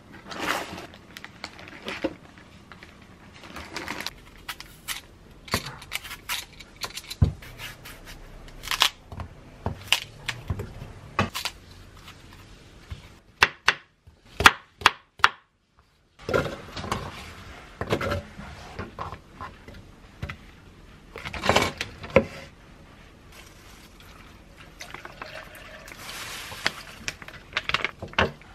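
Kitchen handling sounds: plastic food packs and a cardboard box being handled, then a knife cutting apple on a wooden cutting board in a run of sharp knocks, and near the end liquid pouring into a plastic blender jug.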